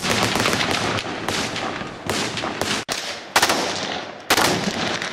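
Rapid automatic gunfire on a shooting range: a dense stream of sharp cracks that breaks off abruptly about three seconds in and starts again.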